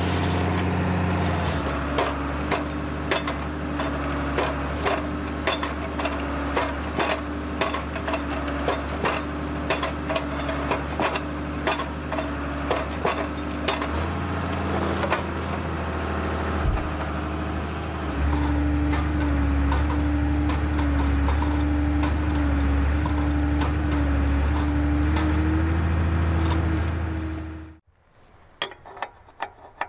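Base machine's engine and hydraulics running steadily while a Naarva S23 guillotine felling head shears and handles small birch trees, with many sharp cracks and snaps of wood and branches. Near the end the machine sound cuts off suddenly, leaving light metallic clinks of steel parts being handled.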